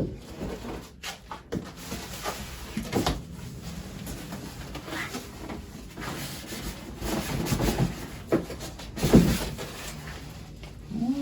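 Handling noise of unpacking lathe parts from their box: scattered knocks, rubs and rustles of packing material and parts being lifted and set down, with the loudest knock about nine seconds in.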